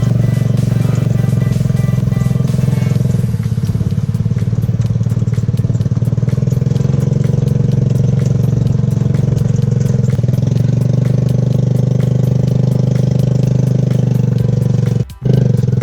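Motorcycle engine of a three-wheeled taxi running steadily, with a brief drop-out near the end.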